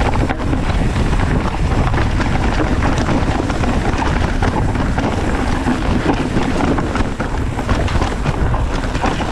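Wind buffeting the camera microphone and hardtail mountain bike tyres rolling over a dirt forest trail, with frequent rattles and knocks from the bike over the rough ground.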